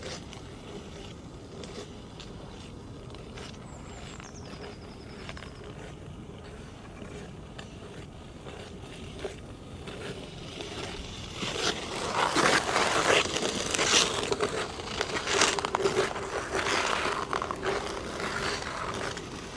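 Ice skate blades on hard natural black ice. For most of the first half only faint scrapes and ticks are heard; then, from about twelve seconds in, a run of louder, rhythmic strokes of the blades scraping and cutting the ice as a skater comes close, easing off a little near the end.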